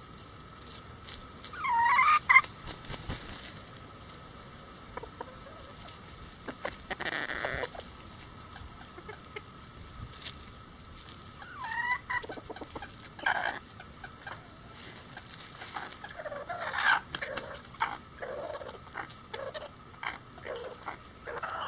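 Bantam chickens calling and clucking: two drawn-out squawks that rise and fall in pitch, about ten seconds apart, the first the loudest, then a run of clucks near the end. Light sharp clicks of beaks pecking at a hanging corn cob come in between.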